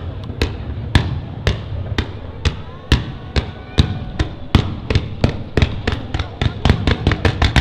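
Fireworks display: a rapid series of sharp bangs, about two a second at first and quickening to about five a second near the end, over a background murmur of crowd voices.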